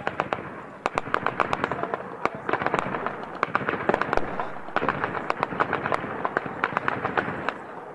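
Gunfire in an urban firefight: many sharp shots in quick, irregular succession, often overlapping in rapid bursts.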